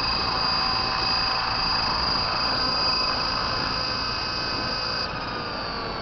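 Large radio-controlled helicopter running, a steady whine over the rush of its main and tail rotors. About five seconds in, after it has set down, the high whine cuts out and the pitch starts falling as the rotor spools down.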